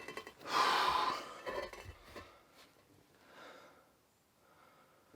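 A man's heavy breathing from the effort of lowering a massive stone slab: one loud exhale about half a second in, then fainter breaths.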